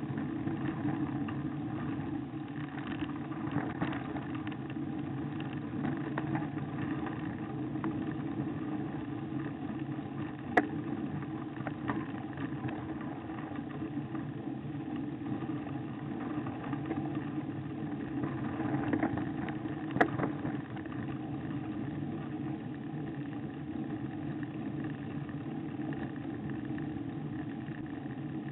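Steady rumble of a bicycle rolling over rough, patched tarmac on a climb, picked up through a handlebar-mounted camera. Two sharp knocks stand out, about ten and twenty seconds in.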